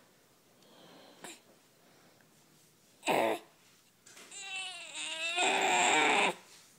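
Baby's short grunt about three seconds in, then a longer wavering whine that gets louder and stops shortly before the end. These are the grunts of a baby straining to fill its diaper.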